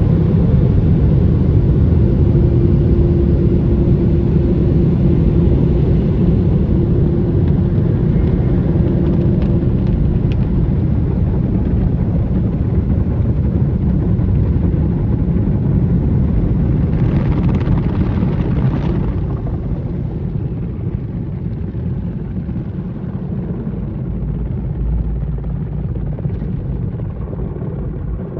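Rotating brushes of a car-wash tunnel working over a car, heard from inside the cabin as a steady low rumble. A steady hum runs through the first third, a brief hiss comes about two-thirds through, and the rumble eases somewhat near the end.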